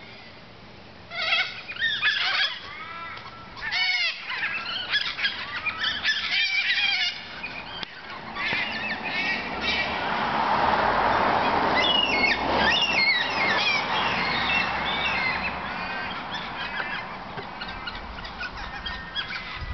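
A flock of cockatoos calling as they gather to roost: many overlapping calls that start about a second in and grow densest around the middle.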